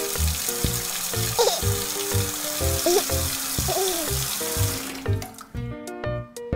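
Sound of a shower running, a steady hiss of water that stops about five seconds in, over cheerful background music with a steady beat.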